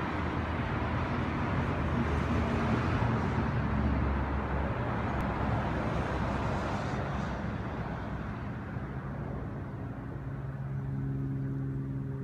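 Road traffic: a vehicle passing, loudest in the first few seconds and fading away, then a steady low engine hum from about ten seconds in.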